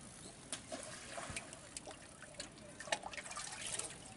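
Loose bait flung by hand onto a fishing pond, landing as a scatter of small splashes and drops on the water surface, with irregular little ticks of water throughout.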